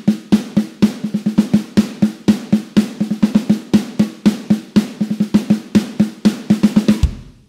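Electronic drum kit's snare sound played in a steady run of eighth notes with double strokes worked in. The run ends on a deeper low hit about seven seconds in.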